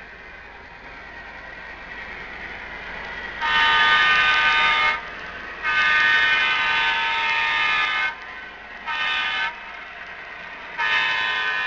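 An O-gauge MTH Premier GP38-2 model diesel locomotive's onboard sound system blows a multi-chime diesel horn in the grade-crossing pattern: two long blasts, a short one, then a long one still sounding at the end. Underneath, the running of the approaching model train grows louder.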